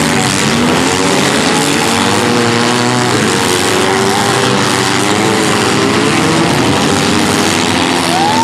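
Engines of several compact demolition derby cars running and revving at once, their pitches wavering up and down over a steady wash of exhaust noise.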